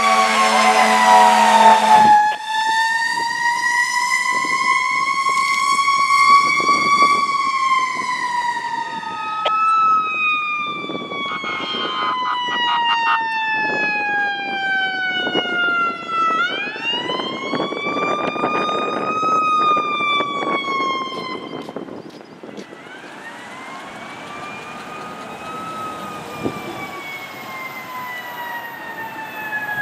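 Emergency vehicle sirens from a passing fire engine and ambulance. An air horn sounds for about the first two seconds, then overlapping sirens wail in slow rising and falling sweeps, with one quick rise about halfway through. The sirens grow fainter after about 22 seconds.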